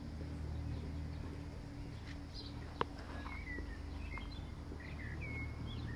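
Birds chirping, with a few short calls and a falling whistle in the second half, over a faint steady low hum; one sharp click about three seconds in.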